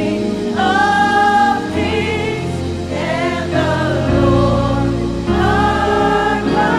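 Gospel choir singing a praise song over band accompaniment, long held notes over a deep bass line.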